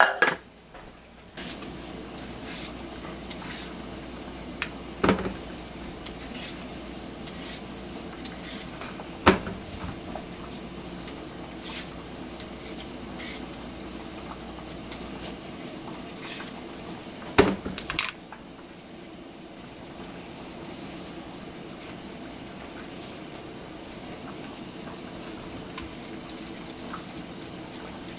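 A lid clatters onto a metal saucepan at the start, then a hand peeler scrapes the skin off eggplants on a wooden cutting board in short strokes, with scattered clicks and a few louder knocks, over a steady low hum.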